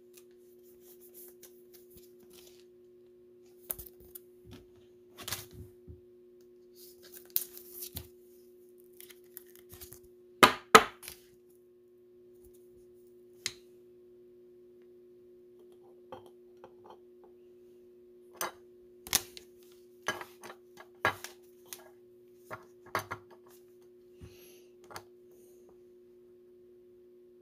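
Hard plastic card holders clicking and tapping as they are handled and set down in a display stand on a wooden table, in scattered short knocks with two loudest close together about ten seconds in. A faint steady hum runs underneath.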